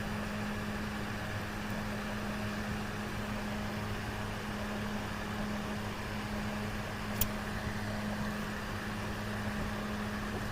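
A steady low electrical hum over a constant hiss of machine noise, with a single sharp click about seven seconds in.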